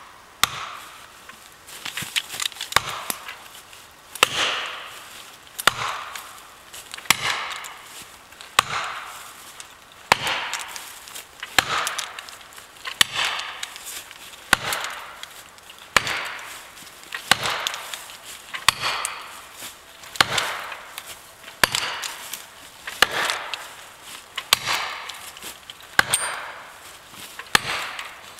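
Steady blows driving a felling wedge into the back cut of a beech trunk, a sharp knock about every one and a half seconds, each with a short fading tail.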